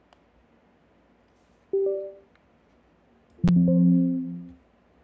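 Windows system chimes: the short two-note rising Windows device-connect sound about two seconds in, as the iPhone reconnects in recovery mode. About three and a half seconds in comes a louder, lower, fuller alert chime that opens with a sharp click and fades over about a second, as the iTunes error dialog pops up.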